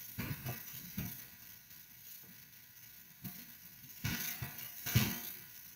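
Computer keyboard keystrokes as a note is typed: scattered separate clicks, sparse at first, then a closer, louder run about four to five seconds in.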